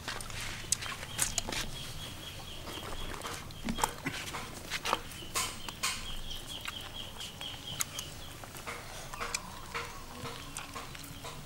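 Knife cutting around the shell of a cooked soft-shell turtle, with scattered sharp clicks and cracks. A high steady tone sounds behind it twice, each time for about three seconds.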